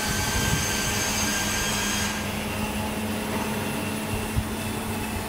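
Hot-drink vending machine dispensing hot chocolate into a paper cup: a steady machine hum, with a high whine that stops about two seconds in.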